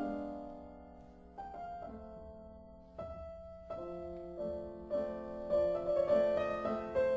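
Slow background piano music: chords and single notes struck one after another, each fading away.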